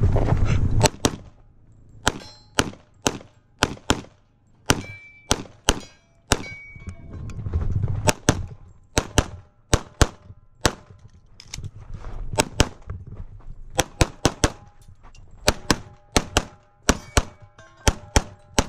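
Rapid pistol fire while running a practical shooting stage: many sharp shots, mostly in quick pairs, broken by short pauses between strings as the shooter moves to new positions. A couple of brief ringing tones follow shots about five and six and a half seconds in.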